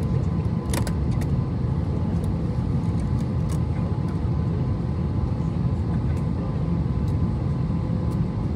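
Steady low rumble inside the cabin of an Airbus A320 with its two CFM56-5B engines at idle, a faint steady whine over it, and a few light clicks and rattles, the sharpest about a second in. This fits the jet taxiing, not the takeoff roll.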